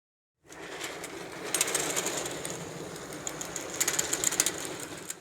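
Sewing machine running and stitching: a rapid, even mechanical clatter that gets louder twice, as if the machine speeds up briefly.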